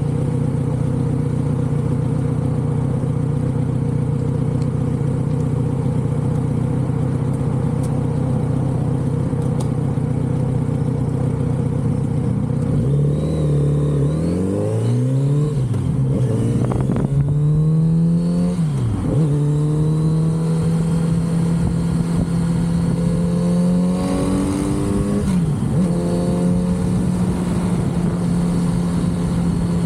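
Kawasaki Z900RS inline-four through its stock exhaust, running at a steady note, then from about the middle revving up and dropping back several times as it accelerates through the gears, before settling into a steady cruise again.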